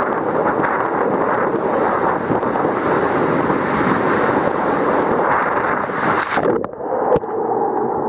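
Water rushing and a rider sliding fast down an Aquarena enclosed tube body slide, heard from a camera riding along. About six and a half seconds in the tube noise cuts off suddenly, followed a moment later by a splash as the rider drops out of the tube into the pool.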